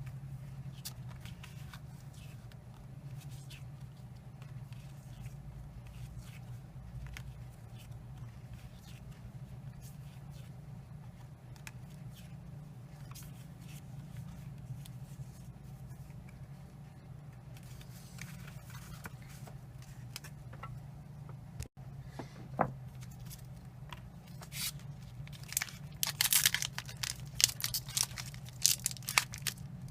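Quiet handling of Pokémon trading cards with scattered soft clicks over a steady low hum; near the end a foil booster pack crinkles and tears open in a run of sharp crackles.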